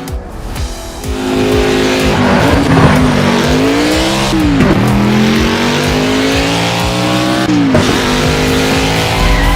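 Race car engine sound effects running hard at high revs, the pitch climbing steadily and twice dropping sharply before climbing again.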